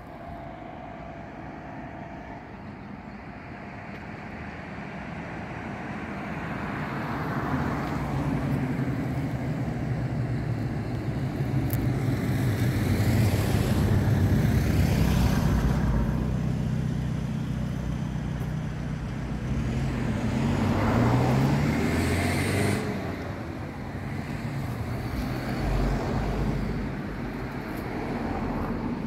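Motor vehicle traffic: an engine hum with tyre noise that swells gradually, then passes loudest about halfway through and again about three-quarters through, the engine pitch shifting on the second pass.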